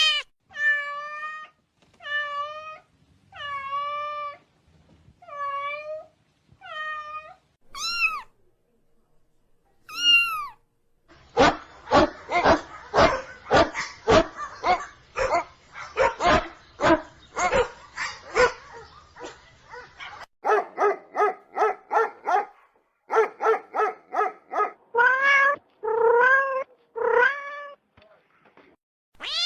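A cat meowing over and over in short, fairly high calls. In the middle there is a stretch of about ten seconds of rapid pulsed animal calls, several a second, before the meows return near the end.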